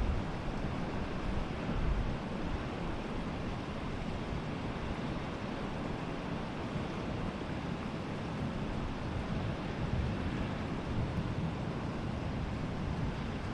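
Steady rushing noise of wind buffeting the microphone, mixed with sea waves, swelling a little now and then in gusts.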